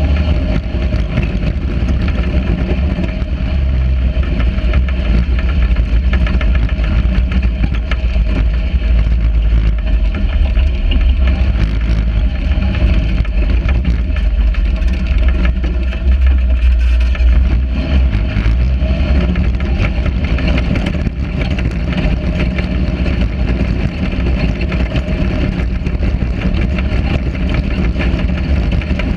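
Sand rail engine running steadily as the buggy drives across the dunes, with heavy low rumble from the ride and the wind.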